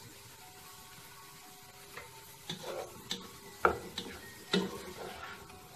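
Wooden spatula stirring diced capsicum, carrots, peas and chicken in a stone-coated wok over a low flame. From about halfway in it scrapes and knocks against the pan several times.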